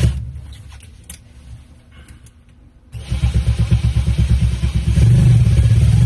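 Power drill driving a self-drilling screw into the thin metal sensor plate, starting about three seconds in and running steadily with a fast low pulsing, a little louder near the end, to cut its own hole in the sheet metal.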